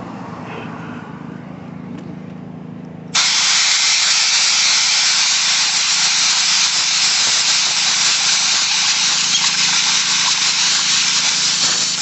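Compressed-air blowgun blasting dust out of a concrete saw's paper air filter: a loud, steady hiss of air that starts suddenly about three seconds in. Before it, a quieter steady low hum.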